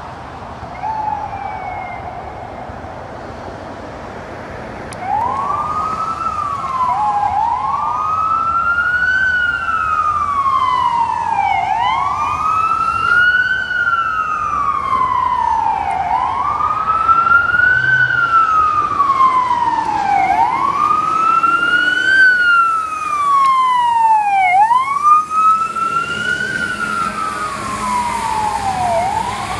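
Fire engine siren wailing, each cycle rising quickly and falling slowly about every four seconds. It gets much louder about five seconds in.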